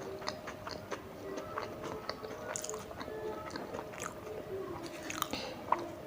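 Close-up chewing and biting of tandoori momos: many small wet mouth clicks and smacks, with one sharper click near the end.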